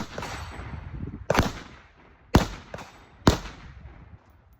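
Rifle shots fired at a steady pace, four loud cracks about a second apart, each trailing off in an echo.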